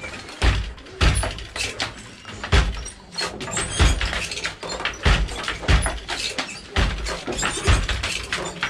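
Wooden handloom worked at speed: heavy wooden thumps about once a second, unevenly spaced, with sharper wooden clacks between them.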